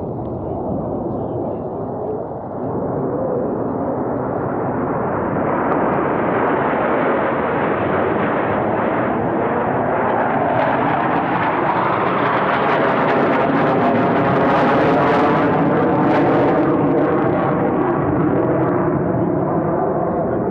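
Blue Angels F/A-18 Super Hornet jets flying past, a continuous jet engine noise that builds to its loudest a little past the middle, with a wavering, phasing tone as they pass.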